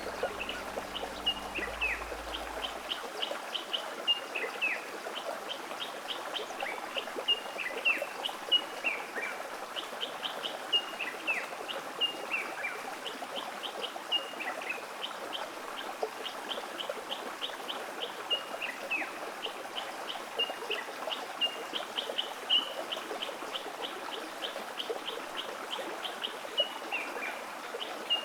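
Birds calling: runs of quick, high chirps, many ending in a short falling note, repeating every second or two over a steady background rush that sounds like a flowing stream.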